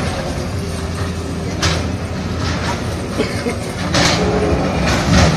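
Heavy diesel demolition machinery running with a steady low rumble, with short sharp bangs about one and a half, four and five seconds in.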